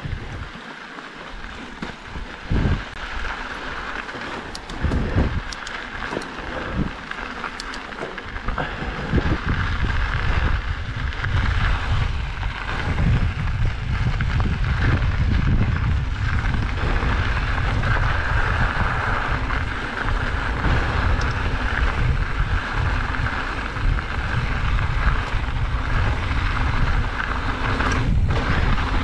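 Riding a mountain bike down a dirt trail: wind rumbling on the microphone and tyres and frame rattling over the ground. A few separate thumps in the first eight seconds, then louder and steadier from about nine seconds in as the bike picks up speed.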